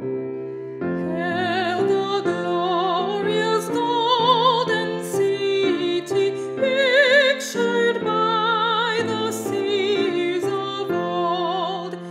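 A woman's voice singing a hymn with a classical, vibrato-rich tone, accompanied by piano chords. The voice enters about a second in, after a brief piano-only moment.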